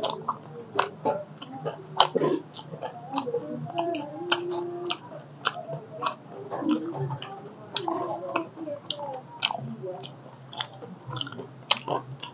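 Close-miked chewing of chatpate, a crunchy Nepali snack mix, making many irregular crisp crackles. A steady low hum runs underneath.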